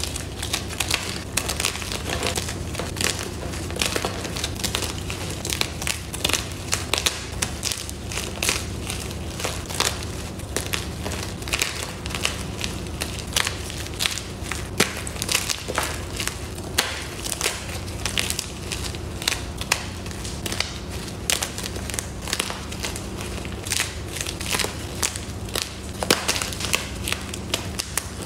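Blocks of white gym chalk, fresh and reformed, being crushed by hand: dense, irregular crunching and crackling as the blocks snap and crumble into chunks and powder.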